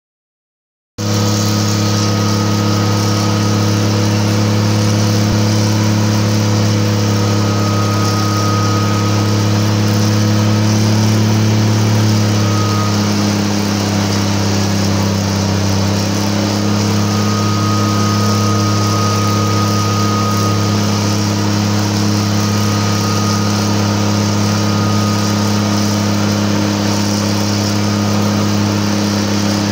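GE 80-ton center-cab switcher's Cummins diesel engine running hard and steady, heard from the car right ahead of the locomotive. Only one of its two engines is working, the other shut down after a failure. Its note drops a little about twelve seconds in.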